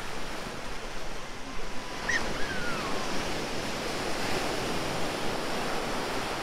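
Small ocean waves breaking and washing over shallow sand: a steady rushing surf noise that swells a little about two seconds in.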